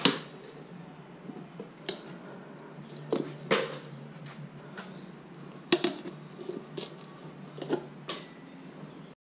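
Steel tyre irons clinking and knocking against a dirt-bike wheel rim and tyre as the tyre is worked on, in scattered sharp strikes, the loudest right at the start, over a steady low hum.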